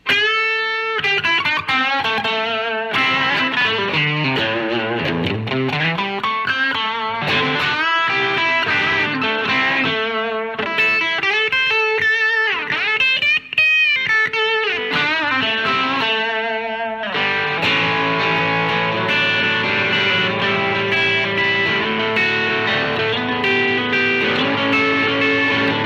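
Electric guitar with a Humble Pickups Black-eyed Susan single-coil on the bridge pickup, played through a ZVex Distortion pedal into a Fender Vibrolux Reverb amp: overdriven single-note lead lines with string bends and vibrato, changing about two thirds of the way through to sustained ringing chords.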